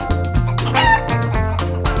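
A chicken sound effect: one short, falling chicken call a little under a second in, over background music with a steady bass line.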